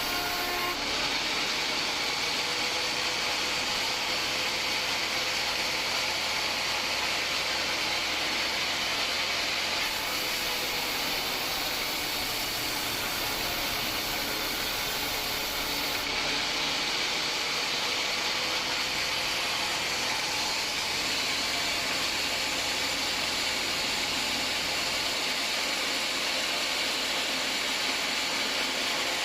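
Homemade band sawmill running, its blade cutting through a hard acacia log: a steady, even mechanical hiss and whir, with the top end changing abruptly about ten and sixteen seconds in.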